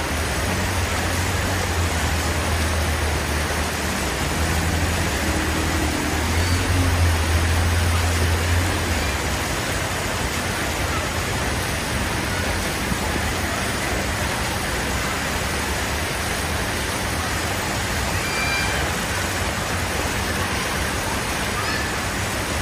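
A motor vehicle's engine running with a low rumble that grows to its loudest about seven seconds in and fades away after about nine seconds, over a steady hiss of traffic noise.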